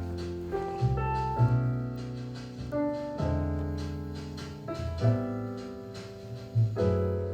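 Jazz piano music, slow chords held for a second or two at a time.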